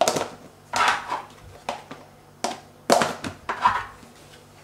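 Plastic lids being handled and pressed onto plastic meal-prep containers: about six sharp clicks and clatters, spread across the few seconds.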